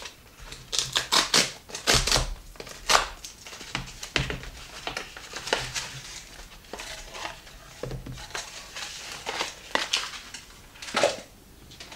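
Cardboard mailer being torn open and its packaging crinkling and rustling as it is unpacked, in a run of irregular tearing and scrunching noises, loudest in the first few seconds and again near the end.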